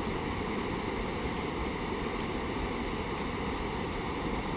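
Steady rushing roar of floodwater pouring through a dam's open spillway gates.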